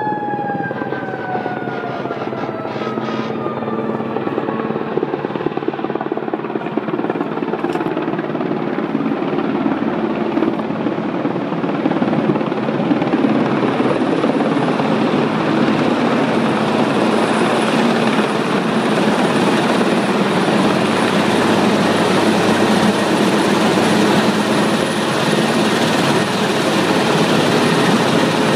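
Large helicopter's rotor and engines, a steady heavy rumble that grows louder as it approaches and comes to hover overhead. Over the first few seconds a siren winds down in pitch and fades under it.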